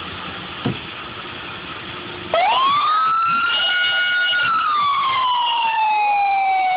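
A vehicle's electronic emergency siren switches on about two seconds in. It rises quickly into a loud wail, holds, then falls slowly, sounded to alert residents to evacuate from flooding.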